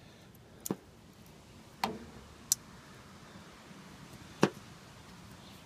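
Magnetic torpedo level tapped down and moved over a van's sheet-metal roof, picking up metal drill shavings: four sharp clicks, the loudest about four seconds in.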